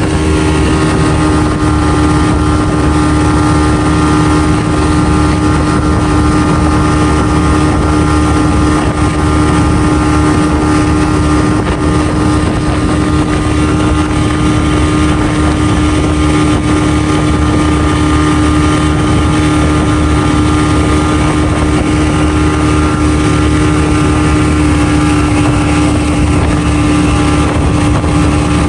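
Motorboat engine running at a steady high speed, one constant pitch, over the rushing hiss of the wake and wind.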